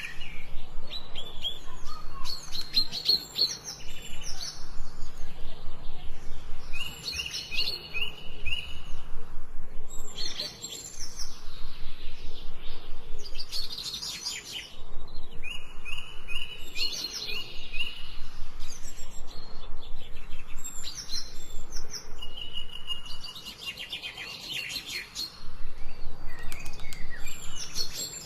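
Birds singing and chirping in repeated high-pitched phrases every few seconds; three times a short, steady whistled note is held within a phrase.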